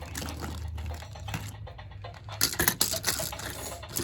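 Toy figures being handled, clicking and clattering against each other, with a louder cluster of knocks a little past halfway.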